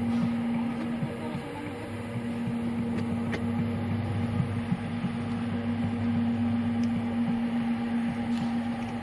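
A machine's motor running with a steady hum and small clicks and rattles throughout; the hum drops away briefly about a second and a half in, then comes back.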